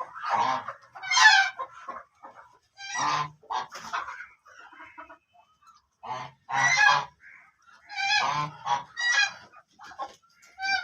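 Black ducks quacking: loud, harsh quacks in clusters of two or three, with short pauses between the groups.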